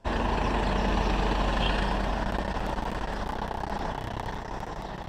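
Vehicle engine and road noise while driving through city traffic: a steady rumble that starts abruptly and fades a little over the last couple of seconds.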